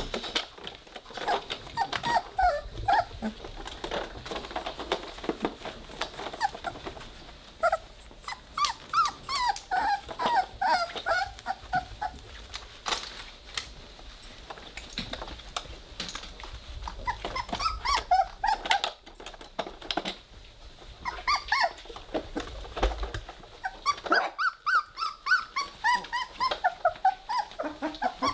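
Three-week-old Weimaraner puppies playing together, letting out many short, high whimpers and squeaks mixed with small growls, with scattered light clicks.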